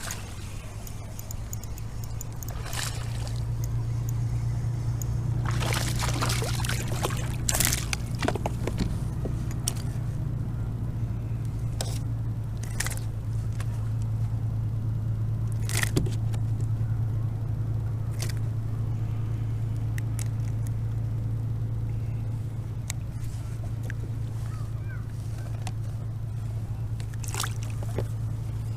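A steady low engine-like hum runs underneath, while short splashes and crackles of water come and go as a hooked bass is fought at the kayak.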